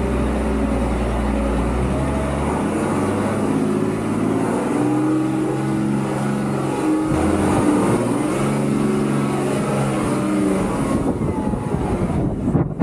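Unimog U1300's six-cylinder diesel engine running under way, its pitch shifting a few times as the revs change.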